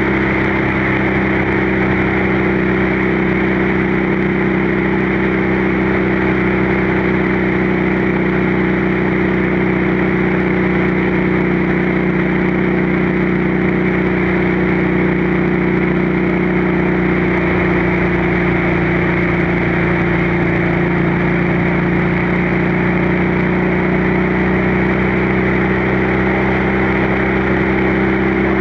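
Motorcycle engine and exhaust running at a steady cruise, heard with wind rushing over the rider's microphone.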